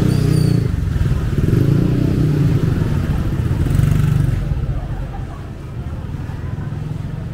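Motorcycle engine running close by, loud for about four seconds and then fading as it moves off, with street chatter behind it.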